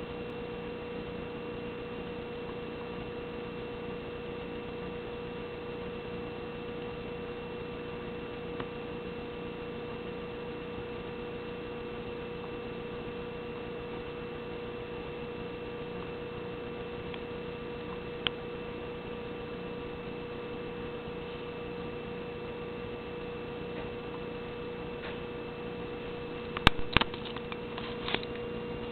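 Steady hum with a few higher tones held over it. Single faint clicks twice, then a burst of louder clicks and knocks near the end.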